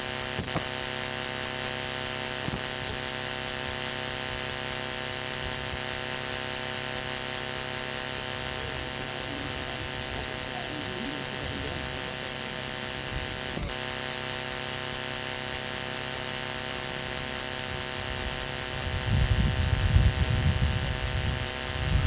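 A steady electrical-sounding buzzing hum with many even overtones, holding one pitch throughout. A louder low rumble rises briefly near the end.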